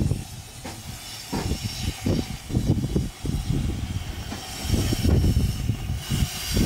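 Miniature 15-inch-gauge steam locomotive reversing slowly onto its carriages to couple up, with low, uneven chuffs and rumble from the engine and wheels. Steam hisses more strongly in the second half.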